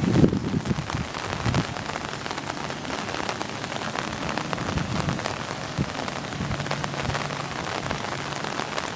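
Steady rain pattering, a dense hiss of many small drops. Wind rumbles on the microphone during the first second and a half.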